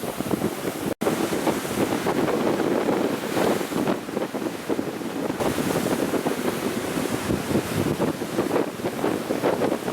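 Ocean surf washing and breaking on the shore, with wind buffeting the microphone. The sound cuts out for an instant about a second in.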